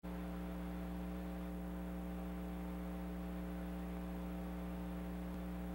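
Steady electrical mains hum with a stack of overtones, low in level and unchanging.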